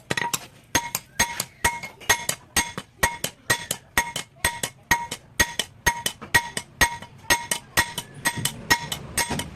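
Blacksmith's hammer striking a sickle blade on an anvil in a steady rhythm: about two ringing blows a second, with lighter taps in between.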